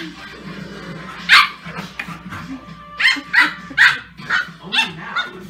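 Pit bulls at play, an adult and a young puppy, giving short play barks: one about a second in, then a quick run of five a couple of seconds later.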